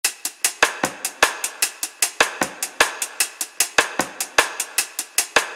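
Background music: a drum kit playing a steady beat on its own, kick drum, snare and cymbals, with no melody yet.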